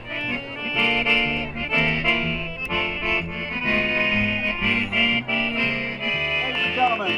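Background music: a tune with sustained chords over a bass line that steps from note to note about twice a second.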